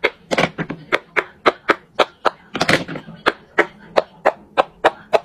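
Silicone pop-it bubbles being pressed flat one after another in a fast race, each giving a short sharp pop, about four a second, with a quicker run of pops near the middle.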